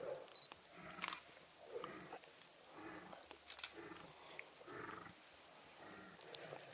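Faint, short, low animal grunts repeated roughly once a second.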